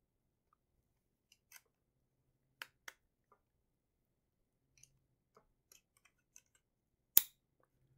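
Scattered faint clicks and taps from handling a LOFTer monitor light bar and its mounting clamp while fitting it onto a computer monitor, with one sharp, louder click near the end.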